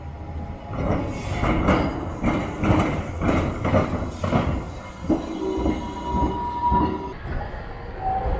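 Four-wheeled 1913 Be 2/2 vintage tram passing close, its wheels knocking on the rails about three times a second. About six seconds in comes a thin, steady wheel squeal from the rails.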